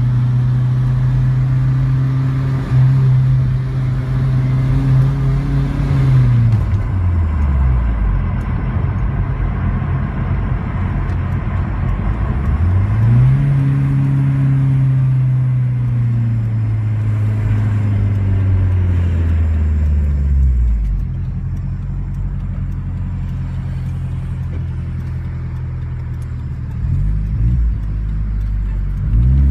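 Turbocharged 2.0-litre inline-four of a Hyundai Genesis Coupe heard from inside the cabin. It drones steadily while cruising, drops in pitch twice as the throttle is lifted and the car slows, rises again in between, settles low for several seconds, then revs up near the end.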